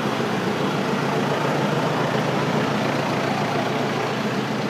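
Steady, even mechanical background drone with no breaks or distinct strikes.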